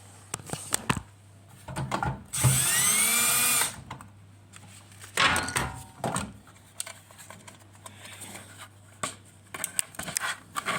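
Cordless drill-driver backing screws out of a tumble dryer's heater housing: it spins up with a rising whine for just over a second, then runs again briefly about three seconds later, with clicks and handling knocks around it.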